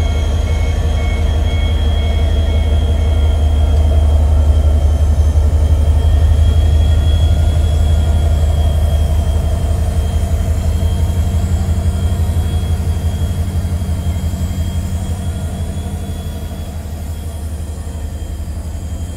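CFR class 64 diesel locomotive running under power as it moves past and away, hauling passenger coaches. A deep steady engine drone carries a thin high whine above it, and both fade gradually over the last several seconds as the locomotive recedes.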